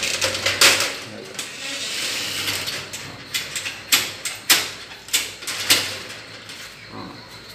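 Lock and latch of a metal door being worked: a series of sharp metallic clicks and knocks about half a second apart as the door is opened.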